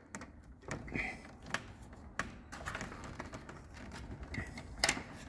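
Scattered light clicks and knocks of hand tools on the plastic housing and screws of a mini-split indoor unit, with one sharper knock near the end.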